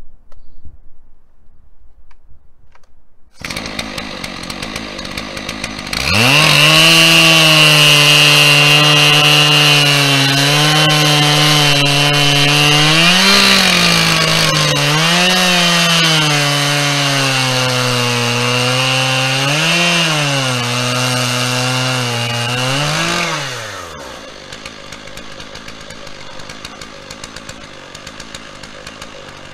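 Chainsaw on a Norwood PortaMill chainsaw mill ripping lengthwise through a pine log at full throttle, which it reaches about six seconds in, after a quiet start. The engine holds a steady pitch under load and rises briefly four times as the load eases. Near the end of the cut the throttle is released and the revs fall away to a much quieter idle.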